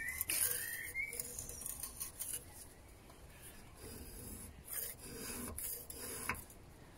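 A scraper blade scraping thick old oil and grease build-up off a steel drive shaft, in irregular short strokes.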